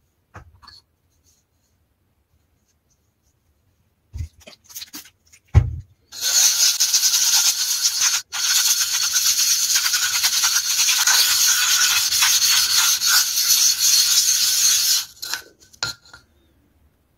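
A sharpening stone rubbed by hand in circles over a wet gabbro granite lapping plate with abrasive grit slurry to flatten it: a loud, continuous gritty scraping that starts about six seconds in, breaks off for an instant, and stops near the end. Two knocks and a few light clicks come before it.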